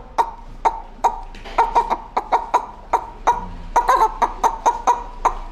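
A man imitating a hen clucking with his voice: a run of short, sharp clucks that come quicker about four seconds in.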